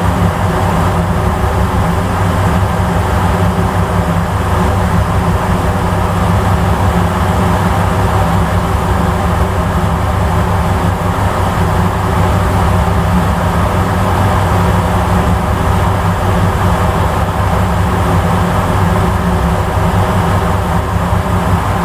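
A ferry's engine running steadily, heard on board as a constant low drone with a hiss over it.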